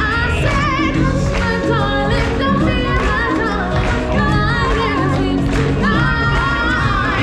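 Live stage-show music: a group of singers in choir-like harmony over a band, the sung lines wavering with vibrato, loud and continuous.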